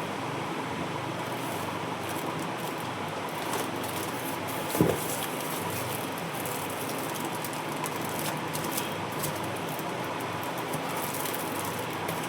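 Steady background hiss with a faint steady tone, broken by a single soft thump about five seconds in.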